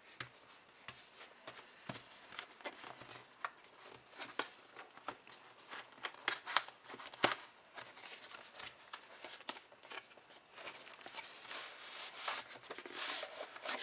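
Cardboard box being opened by hand: the end flap pulled open and the packaging scraping and rustling, with many small irregular clicks. A denser stretch of rustling and sliding comes near the end as the fabric pouch is drawn out of its cardboard insert.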